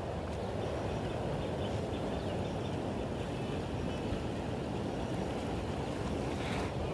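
Steady low outdoor noise of wind on the microphone and the flowing river, with a brief rustle near the end as the plastic sheet is handled.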